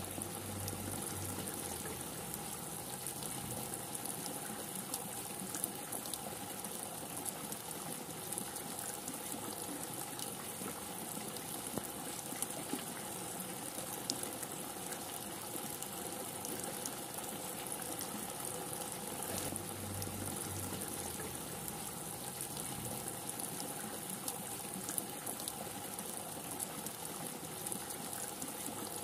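Steady heavy rain falling, with scattered sharper drop impacts.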